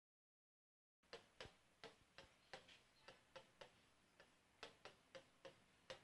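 Silence for the first second, then faint, irregular clicks about three a second: a pen tapping on the screen of an electronic whiteboard as characters are written.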